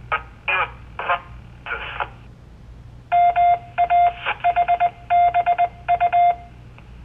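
A few clipped syllables of a voice over a two-way radio channel, then the repeater's Morse code identifier: a run of loud, buzzy beeps at one pitch, long and short, lasting about three seconds.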